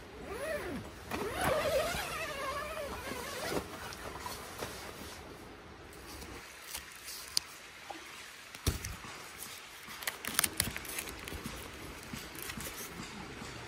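A tent zipper pulled open along the inner tent's door, its pitch rising and falling with the speed of the pull for about three seconds. Then scattered sharp clicks and light rustling as the fabric is handled and toggles and clips are fastened.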